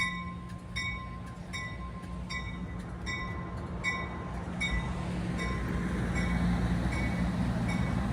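A train's bell rings about twice a second over a steady low engine hum, while a rumble builds from about halfway through.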